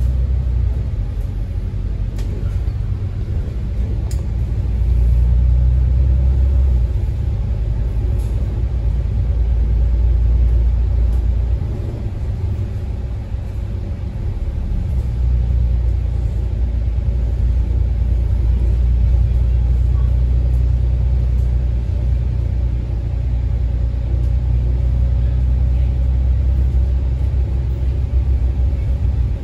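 Low, steady engine and road rumble heard from inside a moving bus, dipping briefly about twelve seconds in before building again.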